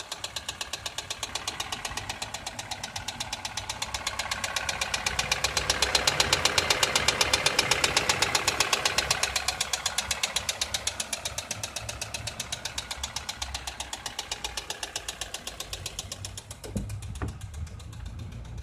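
Toyota 2SZ-FE 1.3-litre four-cylinder engine running with a rapid, even ticking knock, louder in the middle stretch. The owner puts it down to clogged oil passages starving the hydraulic valve lash adjusters, leaving excess valve clearance.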